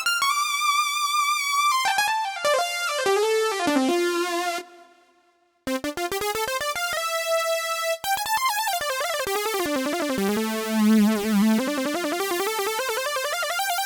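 A keyboard synthesizer patch being played: quick runs of notes and a few held notes with vibrato. The sound stops for about a second roughly five seconds in, then a long run falls and climbs back up.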